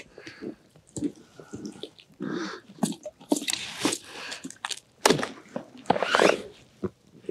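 Irregular crunching of snow and rustling as someone moves and handles gear while kneeling on snowy ice, with a few sharp clicks among the crunches.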